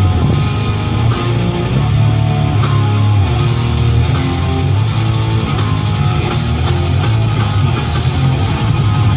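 Heavy rock or metal music with distorted electric guitar, bass and drums, loud and steady.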